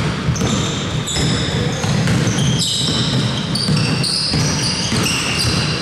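Basketball players' sneakers squeaking on the court floor in many short squeaks at changing pitches, with a few ball bounces over a steady low din of the gym.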